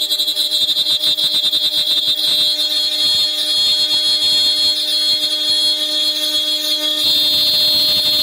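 CNC router spindle milling solid aluminium: a steady high whine with fast, continuous chatter from the cutter biting the metal. About seven seconds in, a hiss of aerosol lubricant sprayed onto the cut joins it.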